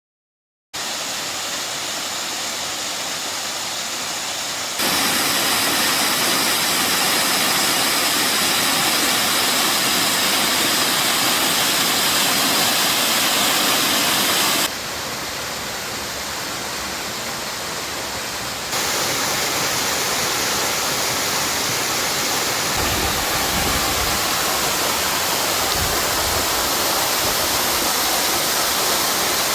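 Waterfall rushing steadily, starting about a second in. Its loudness and tone jump abruptly three times as the recording cuts between spots, and a few low rumbles come near the end.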